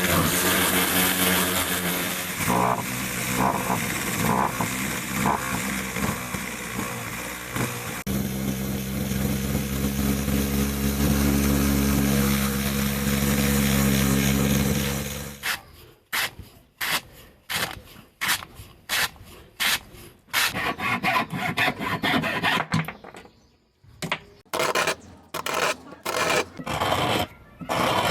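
A power tool running steadily, which stops about halfway through. Then come quick, repeated hand rubbing strokes on the workpiece, as in sanding or filing, several a second.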